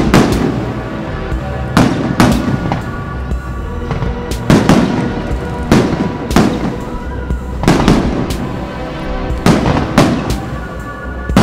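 Aerial fireworks shells bursting in a salute: a dozen or so sharp bangs, often in close pairs, about one every second, over background music.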